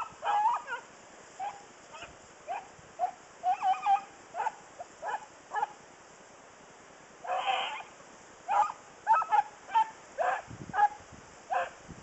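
A pack of hounds baying as they run a track: a string of short, pitched yelps and barks, with a pause of about a second and a half past the middle, then a longer, louder cry and more quick yelps.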